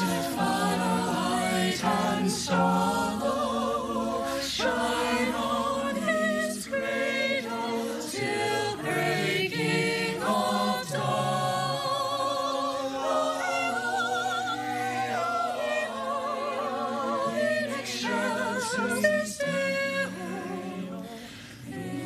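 Mixed-voice choir singing a cappella in close harmony, holding chords with vibrato, with a short soft moment near the end.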